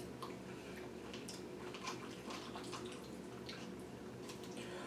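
Faint eating sounds: chewing, and a fork scraping and tapping inside a snack-pot cup in a few short scattered clicks.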